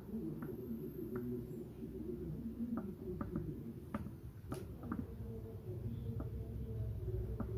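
Light scattered clicks and soft rustling of a Bluetooth neckband earphone's cable and earbuds being handled, roughly nine small clicks spread over a few seconds.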